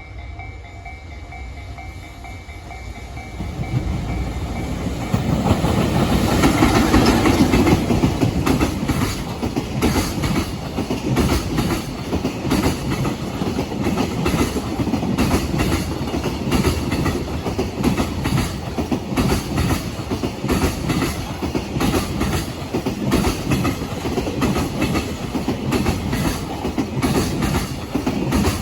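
A level-crossing warning bell rings in a steady pulse at the start, then a freight train rumbles in and passes, loudest a few seconds after arriving. Its wheels then pound over the rail joints in a loud, regular clickety-clack as the wagons roll by.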